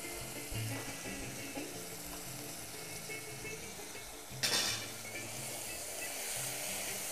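Lamb and chopped onion frying in a cast-iron pot over a gas flame, a steady sizzle with one loud flare of sizzling about four and a half seconds in as the pot is stirred with a wooden spoon.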